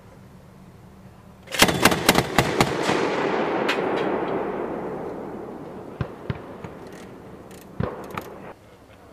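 Mk 19 40mm automatic grenade launcher firing one burst of about eight rounds at a slow, even rate of roughly six shots a second, starting about one and a half seconds in. A long rolling echo fades after the burst, broken by a few single distant reports.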